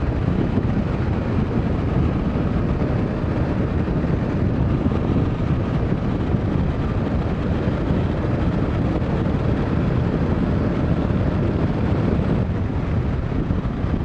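Motorcycle riding at road speed: steady wind rush over the microphone mixed with the engine running at a constant cruise.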